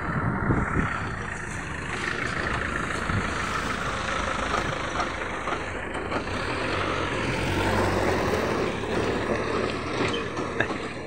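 A cargo truck's engine running as it drives past close by and pulls away along a wet dirt road, loudest about two-thirds of the way through.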